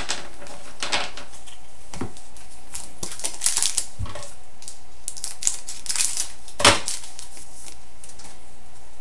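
Upper Deck SPx hockey cards and packs being handled: scattered short rustles and card clicks. The sharpest snap comes about two-thirds of the way in, then only a steady hiss.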